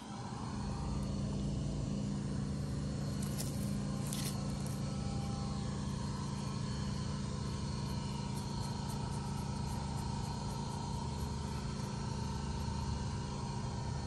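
A steady low mechanical hum, like a motor or engine running at an even speed, that comes in at the start.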